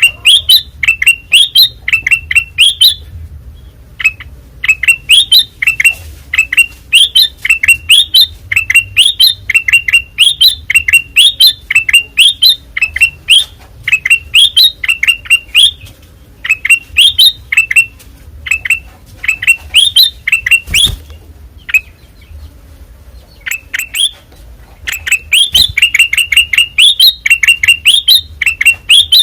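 A kutilang emas mata putih (a bulbul) singing loud, continuous song: runs of quick, sharp, repeated chirping notes with a few brief pauses, over a faint low hum.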